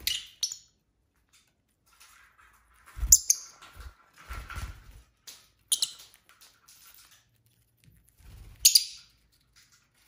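Pet lovebirds giving short, sharp chirps a few seconds apart, with low rustles and bumps as they move about the wooden perch and flap.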